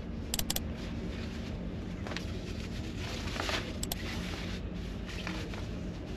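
Steady low hum of the Ogasawara Maru ferry's machinery, with sharp double clicks about half a second in and again near four seconds, and brief rustling noises in between.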